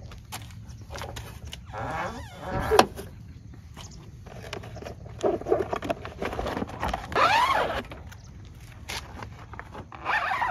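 Vinyl truck canopy sheet being unrolled and pulled down over the back of a kei truck: the plastic sheet rustles and scrapes, with a few sharp knocks and two longer scraping swishes, about two seconds in and about seven seconds in.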